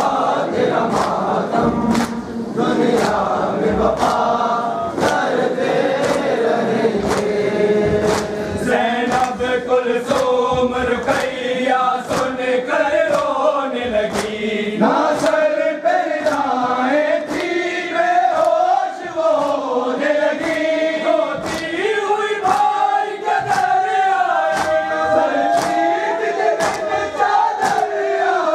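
A noha sung by male voices, with a crowd of mourners chanting along. Under it runs matam: hands striking chests in a steady beat, a little faster than one slap a second.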